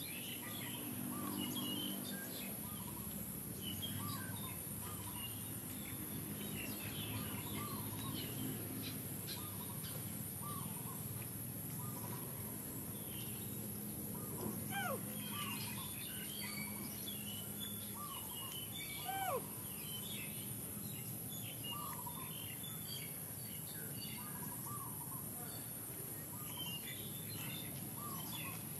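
Birds chirping and calling again and again over a steady high insect buzz, with two louder falling calls about halfway through.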